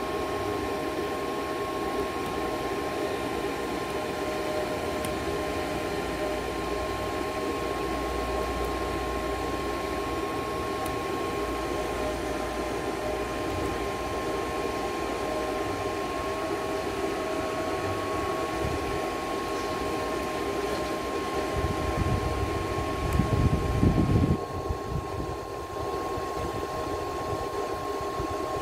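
Daiden MIG130 MIG welder running with its wire-feed motor at the lowest speed, pushing wire through the torch: a steady fan-like hum with two steady whining tones. A louder low rumble comes in briefly a little over 20 seconds in.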